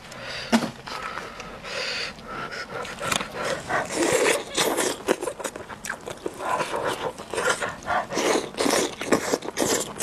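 A whole steamed chicken torn apart by plastic-gloved hands close to the microphone: irregular wet ripping and scraping of skin and meat, with a sharp tap about half a second in.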